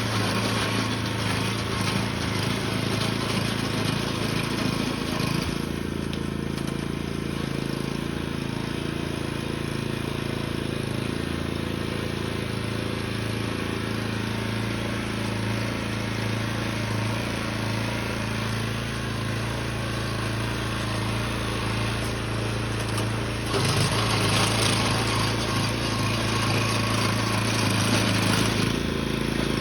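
Small petrol engine running steadily. Its note changes about six seconds in, and it grows louder and harsher for several seconds near the end.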